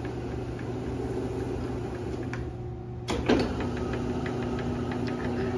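Electric dough sheeter running steadily, its motor and rollers humming as a sheet of dough passes through. About three seconds in there is a click and the hum changes tone.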